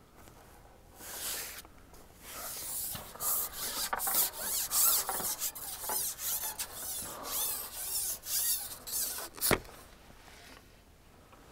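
Long carbon fishing pole being shipped back hand over hand, its sections sliding and rubbing with a series of uneven scraping, hissing strokes. Near the end comes a single sharp click.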